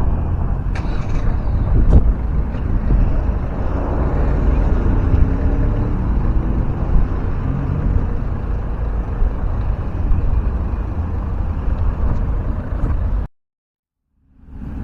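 Outdoor street noise: a low rumble of wind on the microphone mixed with road traffic. The sound cuts to silence for about a second near the end.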